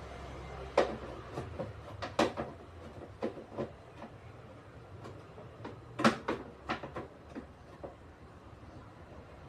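Irregular sharp clicks and knocks from a washing machine's parts being handled during repair, loudest about a second in, just after two seconds and around six seconds, over a low steady hum.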